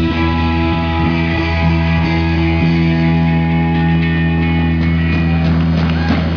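Live rock band's electric guitar and bass guitar holding one sustained, ringing chord through an amplifier rig, which breaks off near the end.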